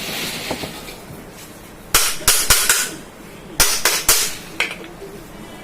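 Hammer strikes on a ceiling fan's parts as it is put back together after a bearing change: a quick run of about four sharp knocks about two seconds in, then another run of about four a second later.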